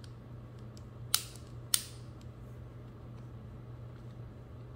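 Atlas bipod legs being worked on their pivots: two sharp metal clicks about half a second apart, a little over a second in, with faint ticks around them, over a low steady hum. The legs are being checked for free movement after the SlapJax pivot screw was snugged and backed off slightly.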